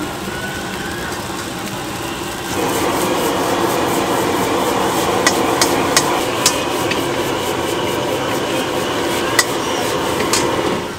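Metal ladle scraping and clanking against a wok while fried rice is stir-fried and tossed over a gas burner, with several sharp ladle strikes on the wok. Under it a steady rush of burner flame and sizzling that grows louder about two and a half seconds in.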